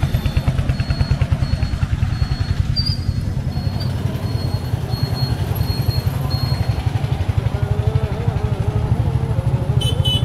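Motorcycle engine running steadily under way, its rapid low exhaust pulses continuous. In the later seconds a wavering melodic tone sounds over it.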